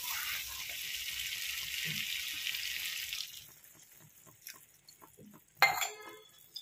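Hot fried masala sizzling in a pan as water is poured in, a steady hiss that dies away about three seconds in. Faint bubbling follows, with one sharp knock near the end.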